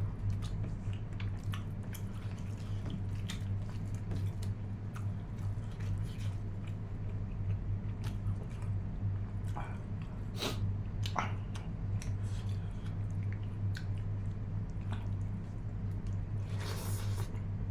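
Close-miked eating: chewing and biting with many short wet mouth clicks, over a steady low hum. A longer noisy sound of about a second comes near the end.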